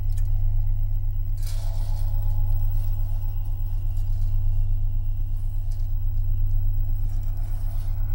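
Dark ambient electronic drone: a loud, steady low hum over a fast, even pulse in the bass, with a hissing swell about a second and a half in.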